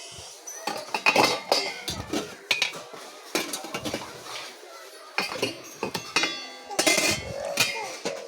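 Metal dishes and utensils clinking and clanging as they are handled: a dozen or so irregular knocks, each with a brief metallic ring.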